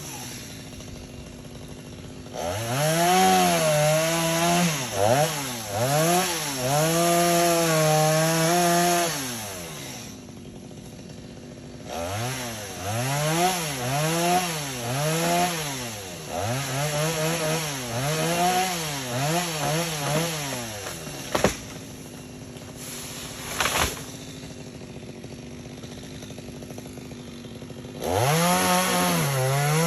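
Two-stroke chainsaw revving in repeated rising and falling pulses, dropping back to idle between three spells of revving. Two sharp cracks sound during the idle after the second spell.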